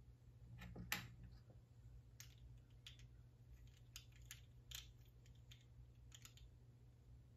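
Faint, scattered clicks of plastic LEGO pieces being handled and snapped together, the loudest about a second in, over a low steady hum.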